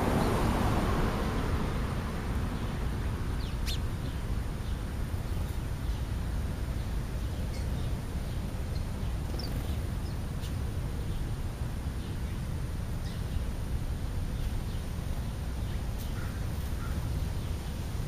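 Steady low outdoor rumble, louder at the start and easing off over the first couple of seconds, with a few faint, short bird calls and light clicks scattered through.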